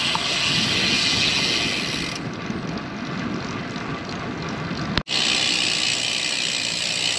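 Lynskey Helix road bike rolling on concrete with tyre and wind noise, its rear freewheel ticking rapidly as a fast buzz while the rider coasts. The ticking stops about two seconds in, the sound breaks off abruptly about five seconds in, and then the ticking returns.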